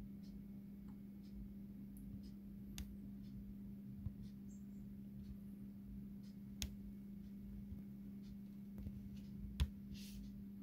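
Quiet room tone with a steady low hum and a scattering of faint light clicks and taps. The sharpest click comes near the end.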